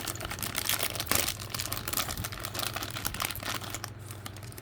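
Packaging of a model-kit blind box crinkling and tearing as it is worked open by hand, a dense run of small crackles.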